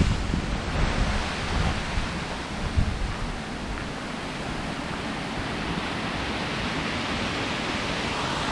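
Steady rushing of the Cascades d'Orgon waterfall falling through the gorge below.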